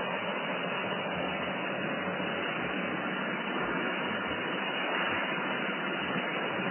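Biscuit-making machine line running with a steady, even mechanical noise and a faint low hum.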